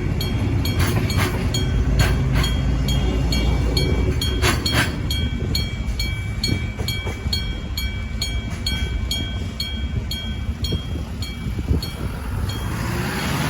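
Electromechanical (denshō-type) level-crossing bell striking at a steady beat, about two to three strikes a second, over the low rumble of railway wagons rolling past with a few sharp wheel knocks in the first seconds. A rising rush of noise builds near the end.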